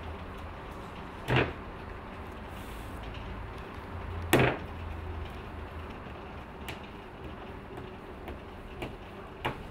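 Lump of potter's clay slapped down hard on a work table, twice, about three seconds apart, while it is being wedged; lighter knocks follow near the end as it is kneaded.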